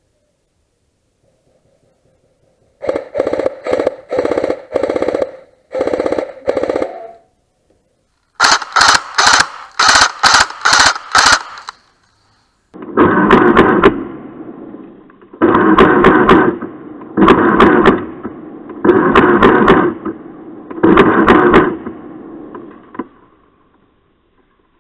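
Airsoft electric gun firing short full-auto bursts, each a fast mechanical rattle of the gearbox cycling. The bursts come in three runs, starting about three seconds in: about five, then about five sharper ones, then about six longer ones.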